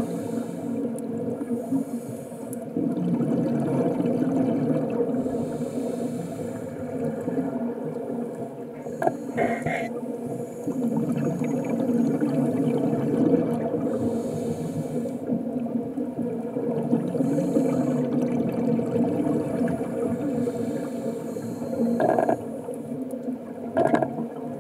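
Underwater scuba sound: the steady low rumble of water and regulator exhaust bubbles, with a hiss that comes and goes every few seconds as the diver breathes. A few short sharp knocks stand out, one about ten seconds in and two near the end.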